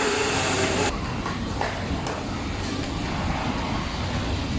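Steady factory-floor background noise, a broad hum and hiss. A brighter hiss cuts off sharply about a second in.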